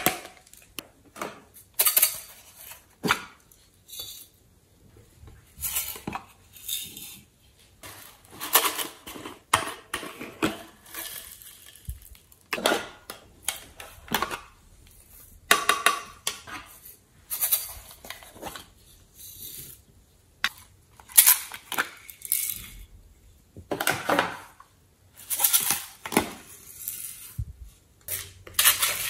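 Small plastic containers clicked and snapped open, and glitter, sequins and tiny beads tipped out of them, rattling into a glass bowl in short bursts every second or two.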